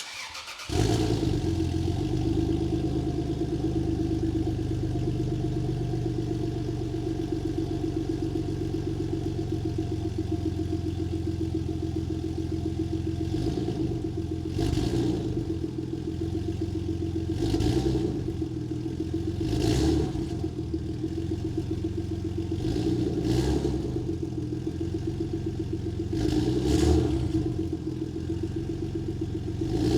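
Exhaust of a Lexus GS 300 3.0 L V6 with its mid muffler deleted and a bypass cut-out valve fitted, running at idle. The sound comes in sharply about a second in. In the second half there are about five short throttle blips.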